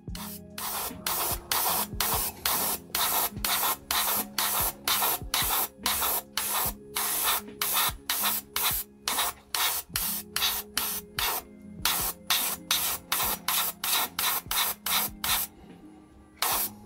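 Gundam Marker Airbrush spraying red marker ink in short hissing bursts of air, about three a second, as the trigger is pressed and released over and over. The bursts stop briefly near the end, then start again.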